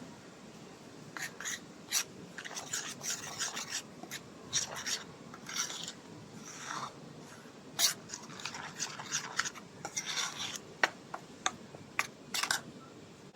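Kitchen preparation sounds: irregular scraping and rubbing with sharp light clicks and knocks of utensils or dishes.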